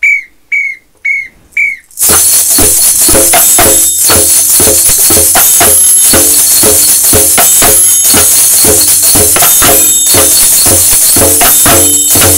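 Four short whistle blasts as a count-in, then about two seconds in a samba percussion ensemble of drums and tambourine comes in together, playing a steady, loud groove.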